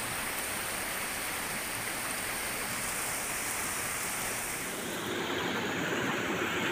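Steady rush of water from a rocky forest stream and small waterfall, shifting in tone about five seconds in.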